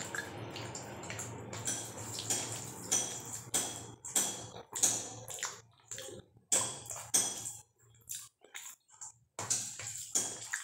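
Close-up wet chewing and mouth sounds of someone eating rice and curry by hand, coming in short irregular bursts.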